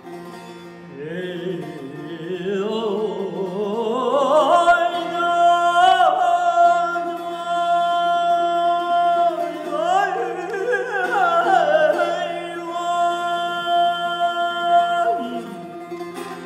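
Male voice singing Persian classical āvāz: a long ornamented phrase climbs to a high held note, then a second wavering, ornamented phrase follows and falls away about a second before the end. Under the voice, a plucked long-necked Persian lute and a steady held tone sound throughout.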